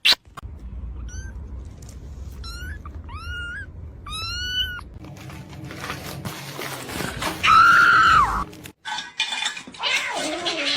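Cat meowing: four short rising-and-falling meows in the first half, then one longer, louder meow about eight seconds in.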